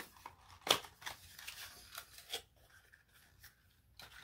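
Small cardboard box being opened by hand: a few short clicks and scrapes of card, with soft rustling of packaging between them.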